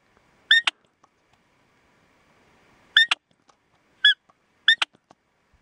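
Primos Hoochie Mama push-button elk cow call pressed four times on its estrus cow setting, giving short, high-pitched cow-elk calls. Each call quickly rises and falls in pitch. The first comes about half a second in, and the other three come close together from about three seconds in.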